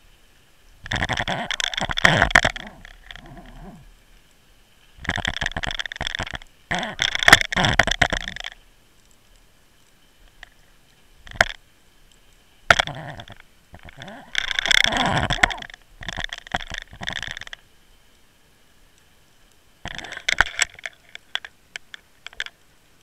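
Rumbling, scraping bursts of one to three seconds, with a few sharp knocks, picked up by a Water Wolf underwater camera on a fishing line as the rig is jerked against the seabed where the jig has snagged. A faint steady whine runs underneath.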